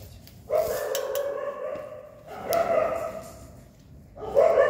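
Injured dog crying out three times, each cry drawn out for about a second at an even pitch, while maggots are picked from its open wound with forceps. A few sharp clicks come between the cries.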